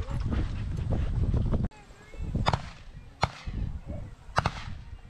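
Strong wind rumbling on the microphone, which cuts off abruptly about a second and a half in. Three sharp cracks follow at uneven spacing, roughly a second apart.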